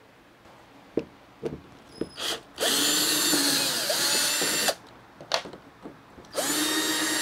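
Craftsman cordless drill backing screws out of aluminum edge trim: two short runs of about two seconds and one second, the motor whining up to speed at the start of each, with a few light handling clicks before and between them.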